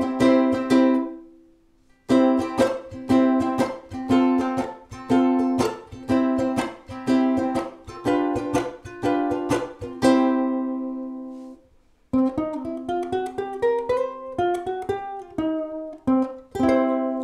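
Snail solid-acacia electro-acoustic concert ukulele played clean, heard through the amplifier and acoustically at once: regular strummed chords that stop briefly twice, then about twelve seconds in a picked single-note melody climbing in pitch.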